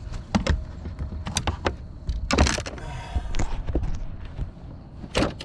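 Handling noise in a fishing boat: a string of sharp knocks, clicks and rattles, with a louder scraping rattle about halfway through, over a steady low rumble.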